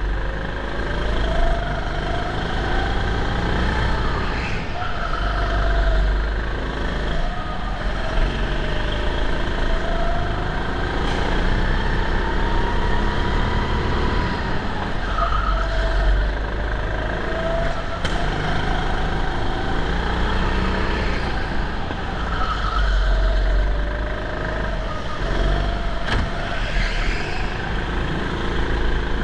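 Go-kart engine heard from on board during a lap, its pitch rising and falling again and again as the driver accelerates on the straights and lifts for the corners, over a heavy low rumble.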